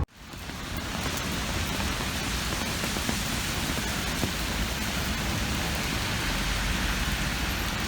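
Steady, even hiss of rain falling, fading in over the first second.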